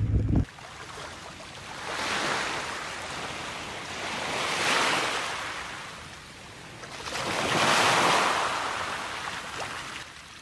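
Sea waves washing in, three slow swells of surf hiss a few seconds apart, after a brief rush of wind on the microphone that cuts off half a second in.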